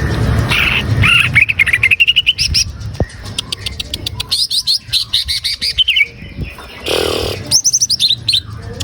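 Cucak ijo (greater green leafbird) singing: fast runs of sweeping whistled notes in three bursts, with a chattering ticking between them.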